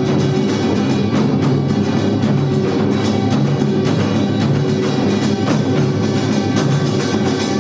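Samulnori percussion ensemble of kkwaenggwari (small hand gongs), janggu (hourglass drums) and buk (barrel drums) playing together in a dense, unbroken beat.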